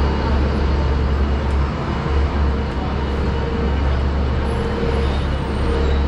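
City street traffic noise: a steady mix of vehicle engines and tyres, with a heavy low rumble.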